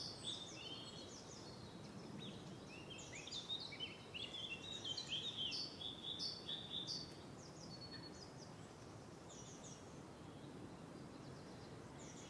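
Small birds chirping and twittering: many short, quick, high chirps, busiest in the middle and thinning out toward the end, over a faint steady hiss.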